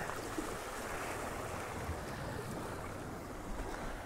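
Small waves washing against shoreline rocks: a steady hiss of surf from a calm sea.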